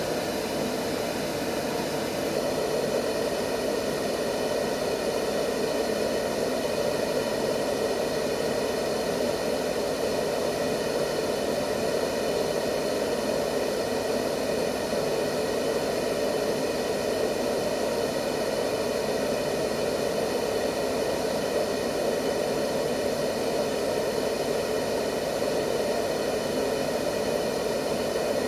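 Steady white noise for lulling a baby to sleep: a continuous, unchanging rushing hiss, fullest in the low middle of the pitch range.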